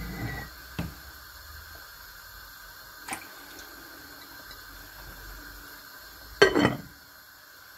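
Pot of chicken cooking on the stove: a faint, steady, watery hiss. A couple of light clicks, and a louder brief clatter about six and a half seconds in.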